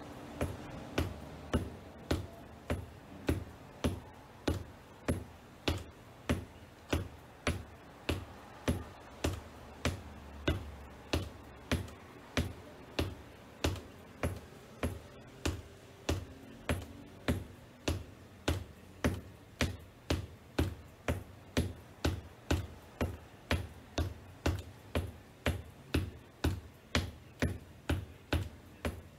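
Black wedge shoes tapping on a hardwood floor in a steady, even rhythm of sharp taps, about one and a half a second.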